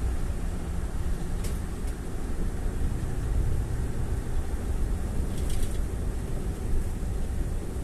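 A car driving along, with the steady low rumble of road and engine noise. Two brief faint high crackles come about a second and a half in and again about five and a half seconds in.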